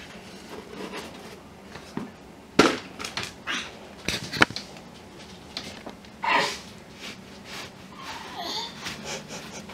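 Handling noise from a cloth snake bag being lifted out of a foam-lined shipping box and set down: rustling with a few sharp knocks about two and a half and four seconds in.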